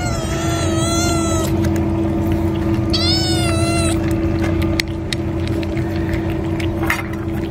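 A cat meowing twice, each meow wavering and about a second long, the second coming about three seconds in, over a steady low hum.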